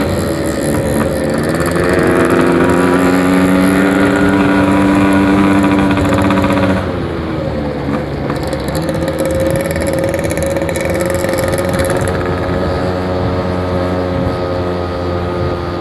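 Two-stroke Yamaha RX-King motorcycle engine running on the move. Its pitch climbs slowly for the first several seconds, drops sharply about seven seconds in, and runs lower and steadier after.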